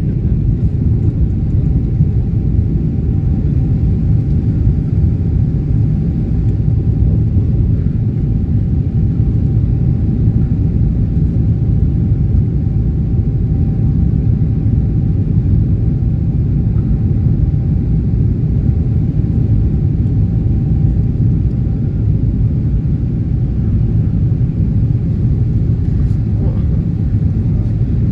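Boeing 777 cabin noise during the climb after takeoff: the engines at climb power and the airflow make a loud, steady low rumble, with a faint steady whine above it that fades out near the end.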